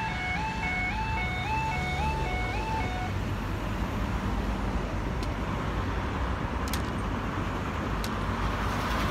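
Schweizer Electronic level crossing sounders give a repeating two-tone yelping alarm, under two cycles a second. It cuts off about three seconds in, as the half barriers reach upright and the crossing clears. After that there is a steady rush of road traffic with a few faint clicks.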